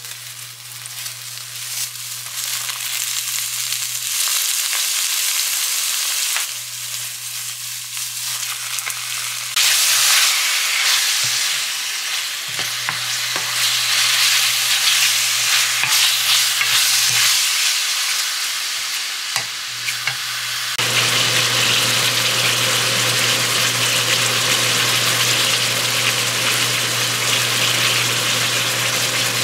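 Food sizzling as it fries in hot oil, a dense steady sizzle with a low hum underneath. The sizzle changes level abruptly several times, jumping louder about ten seconds in and again around twenty seconds.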